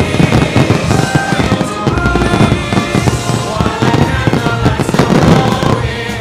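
Fireworks going off in rapid succession, a dense run of bangs and crackles, over the loud music of the show's soundtrack.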